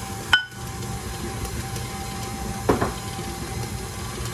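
KitchenAid stand mixer motor running steadily with its beater turning through cookie dough as oats are added, with one sharp clink of the glass bowl against the steel mixing bowl near the start.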